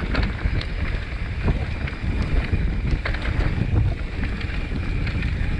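Wind buffeting an action camera's microphone as a mountain bike rolls down a dirt forest trail, with frequent clicks and rattles from the bike over bumps.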